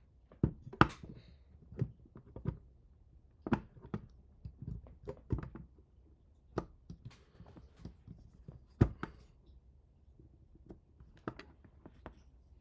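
Irregular clicks and knocks of printer parts and tools being handled during hand assembly of a 3D printer's Z-axis motor and lead screw drive, with the loudest knocks about a second in and near nine seconds in.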